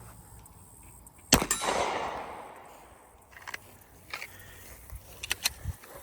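A single pistol shot fired outdoors, its report rolling away in a long echo that fades over about a second and a half, followed by a few faint clicks near the end.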